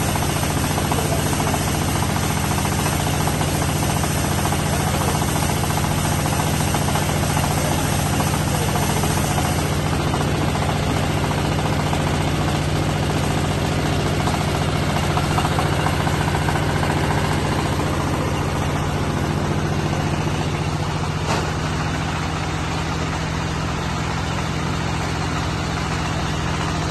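Silage baling and wrapping machine running with its engine at a steady pace, with a single sharp tick about 21 seconds in.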